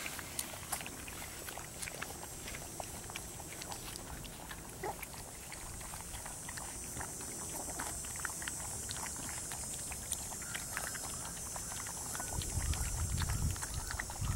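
A litter of young puppies lapping and slurping puppy formula from a metal pan, a busy run of small wet clicks. A low rumble rises near the end.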